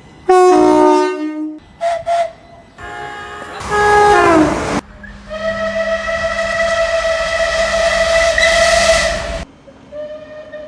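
A run of separate train horn and whistle blasts, cut one after another. A short whistle drops in pitch, two brief blasts follow, then a loud blast that slides down in pitch as it dies away. Last comes a long steady blast of about four seconds with hissing over it.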